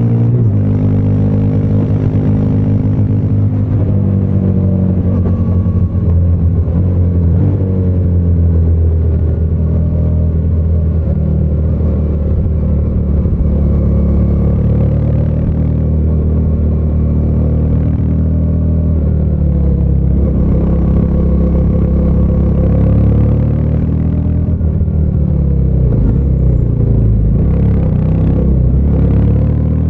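Triumph Speed 400's 398 cc single-cylinder engine and exhaust heard from the rider's seat on the move, its note rising and falling in pitch several times as the throttle opens and closes.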